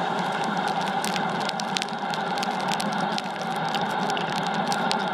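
Wahoo Kickr direct-drive bike trainer running steadily under a pedalling rider, an even whir with a constant hum, dotted with many scattered sharp ticks.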